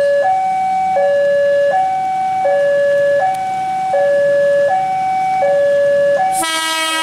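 Electronic two-tone warning alarm alternating between a low and a high tone about every three-quarters of a second. Near the end, an approaching ex-JR 203 series KRL electric train sounds its horn once: a sudden, louder chord lasting about a second.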